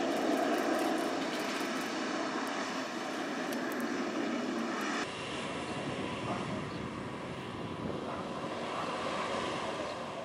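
Jet airliner engines running: first a twin-engine Boeing 777 freighter, then, after an abrupt cut about five seconds in, a four-engine Boeing 747-400 with a somewhat quieter, lower rumble.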